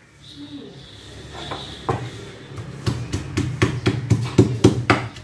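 A kitchen knife chopping green beans on a cutting board: a few separate cuts, then a quick, even run of about five strokes a second.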